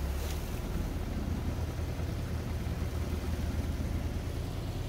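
Fishing boat's engine running with a steady low drone, in reverse to pull the boat off its launching trolley into the sea.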